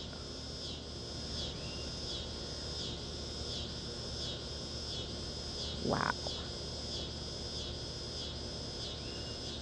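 Insects chirping in a steady, high-pitched chorus, with a beat that repeats about every three quarters of a second.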